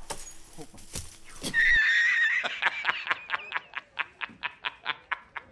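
A dropped-in comic sound effect: a loud, high wavering cry that breaks into a fast run of pulses fading away, like a horse whinny. Before it come a few knocks and rustles as the grappling hook is thrown.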